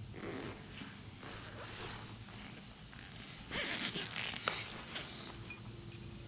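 Hands handling and fitting metal clutch release parts in a gearbox bell housing: rustling and scraping with a few sharp clicks, and a louder stretch of scraping a little past halfway.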